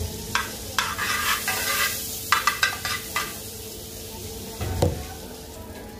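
Metal spoon scraping and tapping around a pan, spreading melting butter, with the butter sizzling under it. The scrapes and taps come irregularly, several in the first half and one more near the end.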